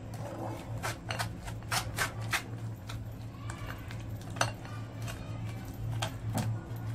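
Irregular clicks and light knocks of a stainless steel mesh strainer as ripe custard apple pulp is pressed and rubbed through it by hand to separate out the seeds.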